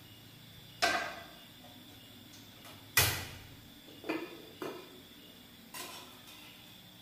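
Several separate metal knocks and clanks as a frying pan is set down on a tabletop gas stove and the burner is lit, the loudest about three seconds in.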